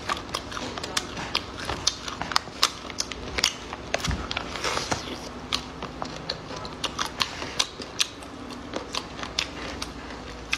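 Close-up eating sounds: chewing and lip smacks, with many short, sharp, irregular clicks and some rustling of the plastic food pouch.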